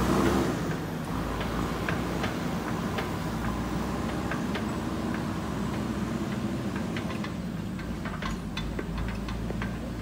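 JCB 3DX backhoe loader's diesel engine running as the machine drives away, growing fainter about a second in, with scattered light ticks over the steady engine sound.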